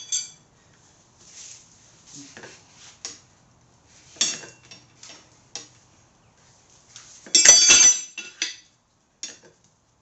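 Metal tire levers clicking and scraping against a motorcycle rim as the tire is worked onto it, in scattered short clinks, with one loud rattling clatter a little after seven seconds in.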